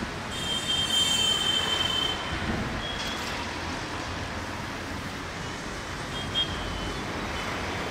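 Broad-gauge passenger train coaches rolling past with their wheels squealing: a high, thin squeal for about two seconds, a short one again about three seconds in, and fainter squeals later on, over steady rumbling noise.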